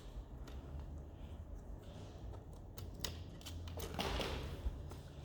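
Light clicks and handling noise of small laptop parts being worked loose by hand, with a brief scraping rustle about four seconds in.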